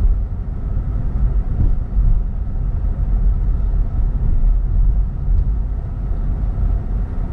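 Steady low rumble of tyre and road noise heard inside a car's cabin as it drives slowly.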